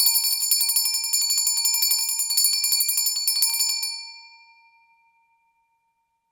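Small brass hand bell rung rapidly, its clapper striking about ten times a second for nearly four seconds, then the ring fades away.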